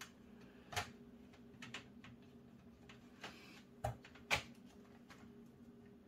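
Faint scattered clicks and taps of small screws and metal parts being handled as case-fan screws are started, the two sharpest about four seconds in, over a faint steady hum.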